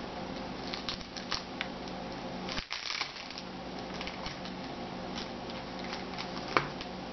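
Light clicks and taps of a trading card being handled, over a steady low hum of room tone; the sharpest click comes about six and a half seconds in.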